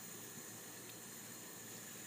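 Dum aloo potato curry simmering in a pan: a faint, steady hiss.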